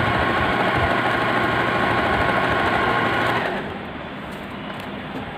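Usha Janome Wonder Stitch Plus electric sewing machine running steadily as it sews a decorative pattern stitch, then stopping about three and a half seconds in, followed by a few faint clicks.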